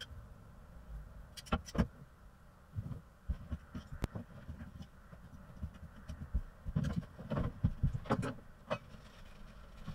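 Irregular clicks, knocks and low thumps of hands working with fittings and cords, as when string work lights are being hooked up, with sharper clicks about a second and a half in and a cluster between about seven and nine seconds.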